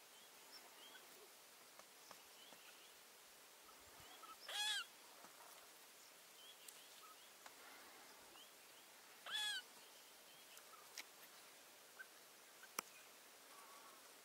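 A rabbit caught and bitten by a mongoose gives two short, high-pitched distress squeals about five seconds apart, each wavering in pitch. Faint bird chirps run underneath, and there is a sharp click near the end.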